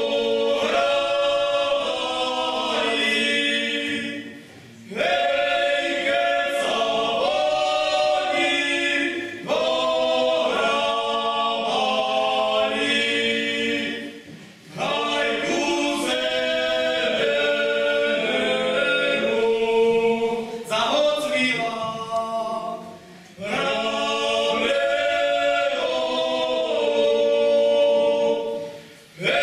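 A group of voices singing a song unaccompanied, in phrases several seconds long with short breaks between them.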